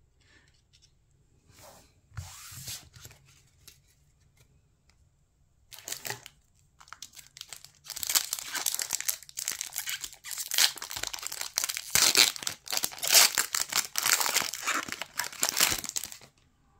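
A foil Pokémon TCG booster pack wrapper being torn open and crinkled by hand. After a few quiet seconds with faint card handling, the crinkling and tearing start about six seconds in and run loud and dense until they stop shortly before the end.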